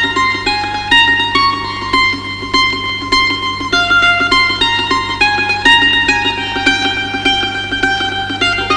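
Background music: a quick run of plucked string notes, like a mandolin, over a steady low drone.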